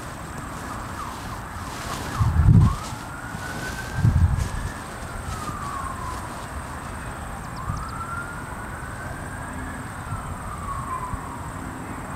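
Emergency vehicle siren in a slow wail, its pitch climbing over a couple of seconds and then sinking, over and over. Two short bursts of low rumble come about two and four seconds in.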